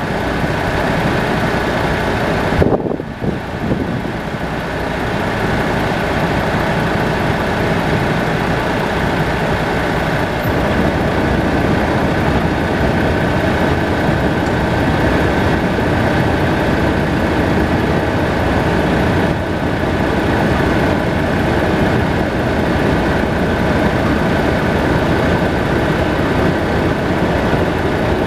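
Heavy vehicle engine idling steadily, with a brief dip about three seconds in.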